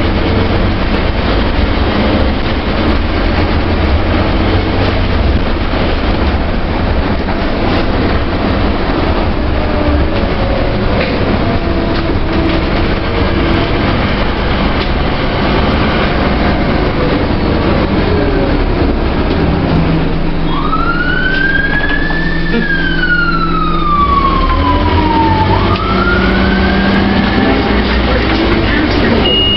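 Cabin noise of a Scania OmniCity bus on the move: steady engine, transmission and road noise. About two-thirds of the way through, a siren wails once, rising, falling slowly and rising again.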